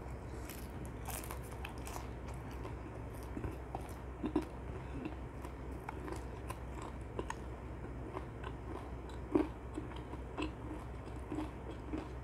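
Close-up chewing and crunching of dakgangjeong, Korean sweet-glazed crispy fried chicken, picked up on a clip-on microphone: irregular crisp crackles of the coating between chews, with a couple of louder crunches.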